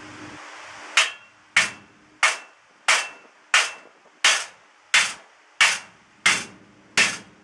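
Hammer striking metal in a steady rhythm, about ten blows, roughly one and a half a second, each ringing briefly.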